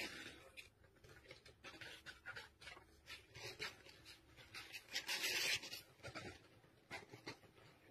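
Faint rustling and scratching of a finger rubbing a kitten's belly fur, in many small irregular scratches that grow loudest about five seconds in.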